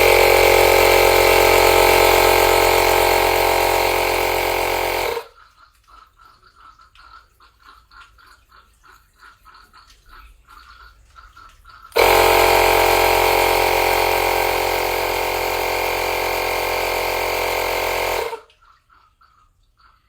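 Electric air pump running steadily in two runs of about five and six seconds, with a short pause between. It is pumping air into a boiler's deflated expansion vessel to push out the water that has filled it.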